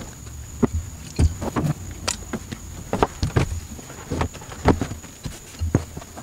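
Irregular knocks and clicks, about a dozen over six seconds, from parts and tools being handled while the car's trunk interior is put back together.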